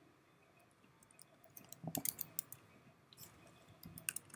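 Keystrokes on a computer keyboard: a short run of clicks about two seconds in, then another run near the end.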